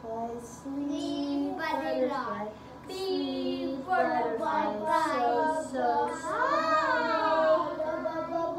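Young children singing, their voices sliding up and down in pitch.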